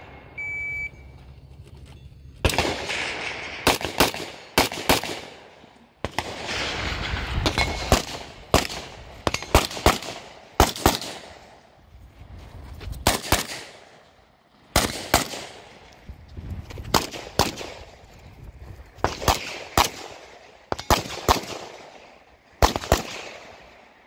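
A shot timer beeps once under a second in, then a 1987 Izhmash AKS-74 rifle in 5.45×39 mm fires dozens of shots in short, fast strings with pauses between, each shot sharp and echoing.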